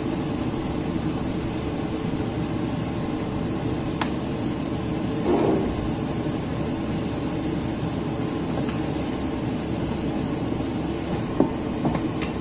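Steady low background noise, with a sharp click about four seconds in and a few light knocks near the end as a wooden spatula stirs in a wok.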